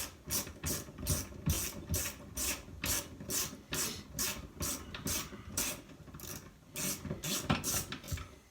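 Hand ratchet wrench worked back and forth, a burst of ratcheting clicks on each return stroke at about two to three strokes a second, loosening a fastener on a chainsaw being taken apart.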